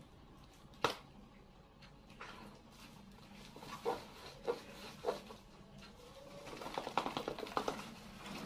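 Small cardboard barongan mask being handled and worked in front of the face: a sharp click, a few short knocks, then a quicker run of clatter near the end.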